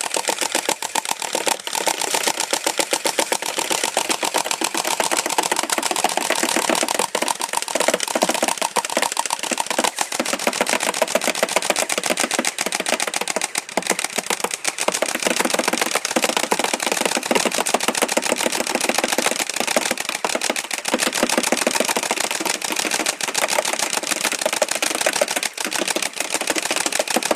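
Airsoft AUG rifle firing on full auto in long, nearly unbroken strings, a fast rattle of shots with only brief pauses between bursts.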